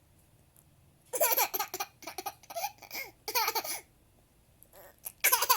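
A young child laughing in fits. A run of laughter starts about a second in and lasts some three seconds, then stops, and a fresh bout starts near the end.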